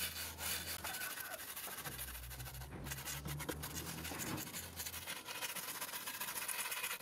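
Small brass wire brush scrubbing rotted walnut wood in rapid back-and-forth scratching strokes, scouring out the soft rot so the grain pattern stands out.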